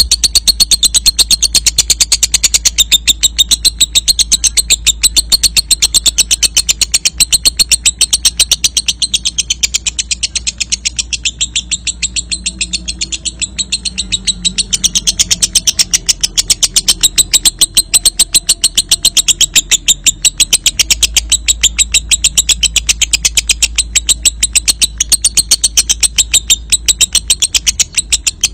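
Lovebird ngekek: a long, unbroken run of rapid, sharp, high-pitched chirps repeated many times a second, the sustained chatter that keepers call 'ngekek panjang'.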